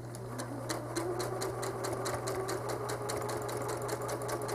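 Home sewing machine stitching during free-motion quilting: the needle ticks steadily at several stitches a second over the motor's hum, starting slowly and picking up speed about a second in.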